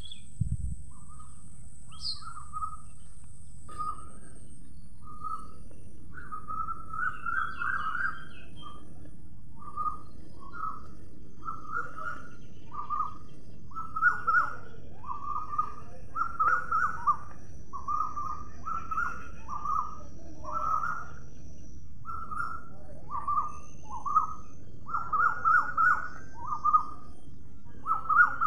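House sparrows chirping, a quick series of short chirps that grows busier and louder about halfway through, over a steady low background rumble.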